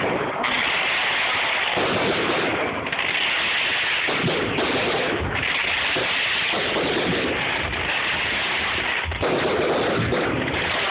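Ground fireworks going off at close range: a continuous hissing crackle of spark showers that swells and eases every second or two, with several low thumps.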